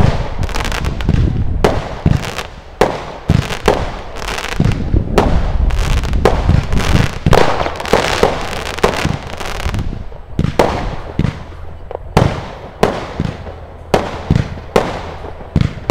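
Consumer firework battery (cake) firing a rapid series of shots, about two bangs a second, with crackling between them.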